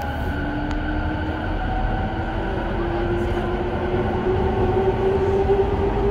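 Running sound inside a JR East E217 series motor car as it accelerates: the traction motors and inverter whine, the pitch climbing steadily, over a steady rail rumble that grows slightly louder.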